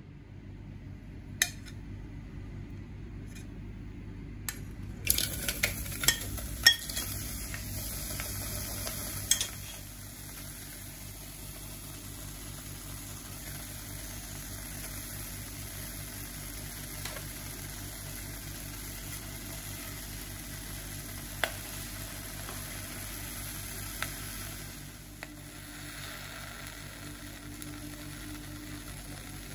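Kitchen handling sounds: a steel spoon and food clinking and knocking against an aluminium pressure cooker while spices are added to chopped raw mango. The knocks cluster in the first third, and after that there is a steady hiss with only an occasional click.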